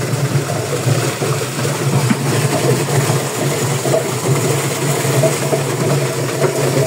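Homemade feed chopper built into a washing machine cabinet, its washing-machine motor running steadily with a rough grinding rattle as its blades shred fruit into mash.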